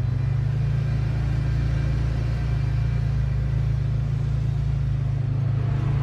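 Steady low engine drone of a small vehicle moving slowly forward, heard from on board.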